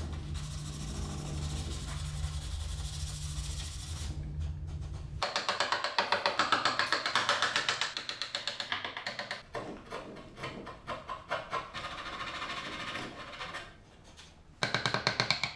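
Background music with a quick, steady drum beat; the beat dips briefly near the end and comes back louder.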